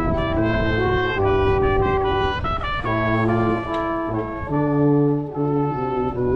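Brass instruments playing music in harmony, with short notes moving in several parts and longer notes held in the second half.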